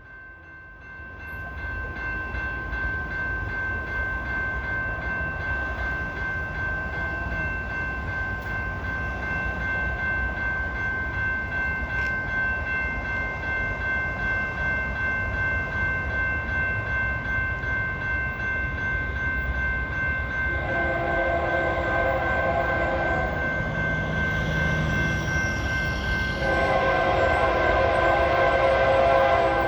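Approaching freight train led by GE diesel locomotives, its engine rumble building steadily louder, over a steady high ringing tone. The locomotive horn sounds two long blasts, the first about two-thirds through and a louder one near the end.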